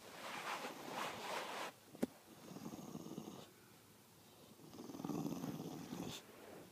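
A Beabull dog breathing noisily through its nose with a tennis ball held in its mouth, in two spells, the second one lower and heavier. A single sharp click comes about two seconds in.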